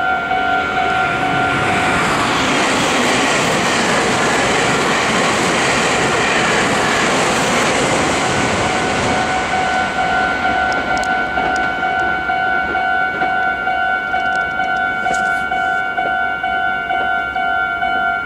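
Japanese level-crossing warning bell ringing in a steady repeating pattern, while a Meitetsu train passes over the crossing, its rail noise swelling and then fading away by about ten seconds in. The bell keeps ringing after the train has gone.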